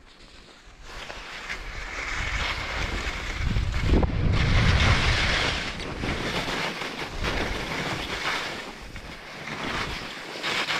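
Skis hissing and scraping over chopped-up snow on a fast downhill run, with wind buffeting the microphone. The noise builds over the first second and is loudest, with a low rumble, about four to five seconds in.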